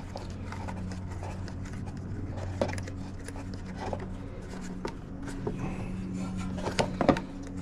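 Hands twisting and pulling the mower's air intake hose at the air filter housing: rubbing and scraping with scattered small clicks and knocks, over a steady low background hum.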